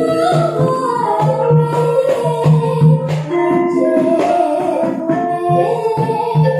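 A girl sinden sings a Javanese song into a microphone over a gamelan ensemble, with steady metallophone tones and regular drum strokes underneath.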